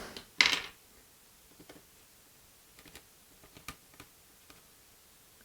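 A short rustle about half a second in, then a few faint, scattered plastic clicks and taps from keyboard parts being handled.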